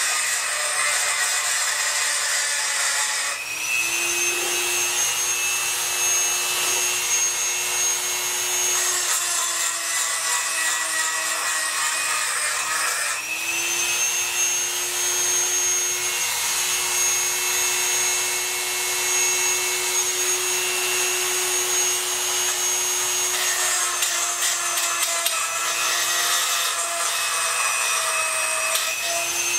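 Dremel 4000 rotary tool running at high speed with a porting bit, grinding out a port of an 80cc two-stroke bicycle-engine cylinder to smooth and widen it for port matching. A steady high whine over a grinding hiss that dips slightly in pitch now and then.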